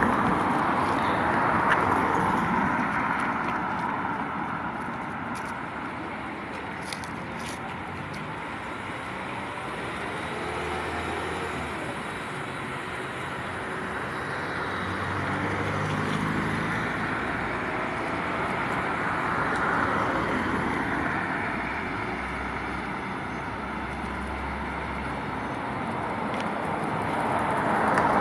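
Road traffic: cars passing one after another, their tyre and engine noise swelling and fading several times, with a low engine hum at times.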